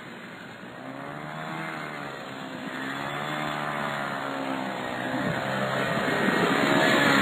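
Paramotor engine and propeller running, its pitch rising and falling with the throttle and growing steadily louder.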